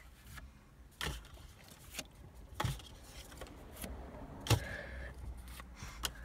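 Pokémon trading cards being handled and flipped through, with a few soft clicks and rustles, the loudest about four and a half seconds in, over a low steady hum.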